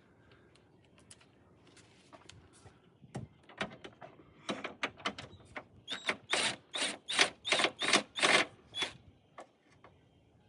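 Ratchet wrench on a swivel adapter clicking as 10 mm nuts are backed off. A few scattered clicks come first, then a quick, even run of loud clicks, about three a second, that stops about nine seconds in.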